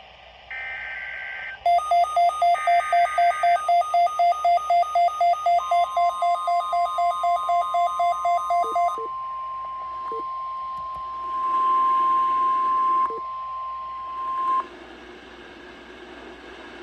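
NOAA Weather Radio alert signals. First come two short bursts of the SAME digital header's buzzy data tones. Then rapid electronic beeping at about four beeps a second starts, and the steady 1050 Hz weather radio warning alarm tone joins it about halfway through the beeping and holds for about nine seconds before cutting off, leaving a low radio hiss.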